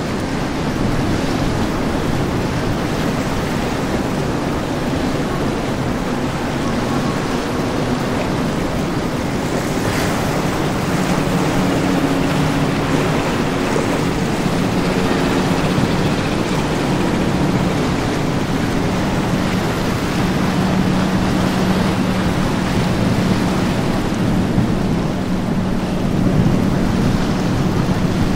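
Rushing water and wind on the microphone as a large motor yacht churns past through choppy water, throwing a heavy wake. From about the middle on, a low steady engine drone from the yacht's inboard engines rises out of the water noise and holds.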